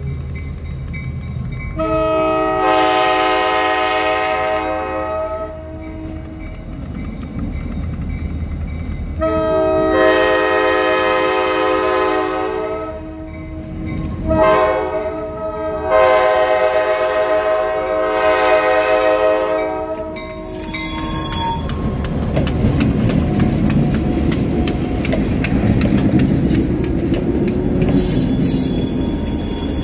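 Diesel freight locomotive's horn sounding the grade-crossing signal: two long blasts, a short one and a final long one, a steady chord of several tones. After it, the locomotives rumble over the crossing with rapid regular clicks.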